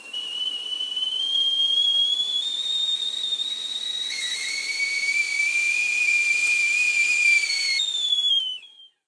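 A whistling kettle at the boil: steam under pressure rushes out through the small hole in the spout whistle. The whistle climbs slowly in pitch over a steady hiss, and a second, lower tone joins about four seconds in. Near the end it dies away with a falling pitch.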